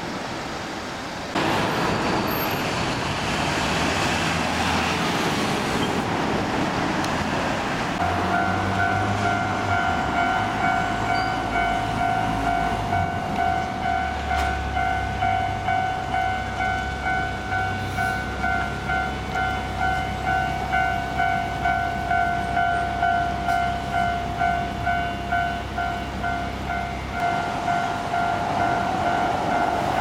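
Japanese railway level-crossing warning bell starts about a quarter of the way in and rings steadily at about two strikes a second, a high electronic clang, over road traffic and idling engines. Near the end a train's approach adds to it.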